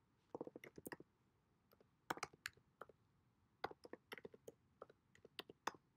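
Computer keyboard being typed on: several short runs of quick key clicks with brief pauses between them.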